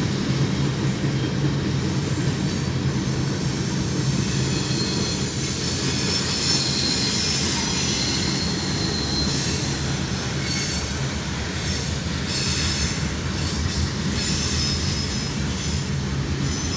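Freight cars of a mixed freight train rolling past with a steady rumble of wheels on rail. Thin high-pitched wheel squeals come and go through the middle of the passage.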